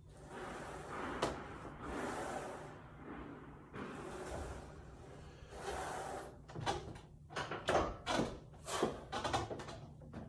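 Soft rustling swells, then a quick run of light knocks and clacks in the second half.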